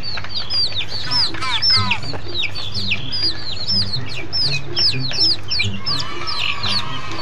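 A flock of baby chicks peeping: a rapid, overlapping stream of high, downward-sliding peeps, several a second.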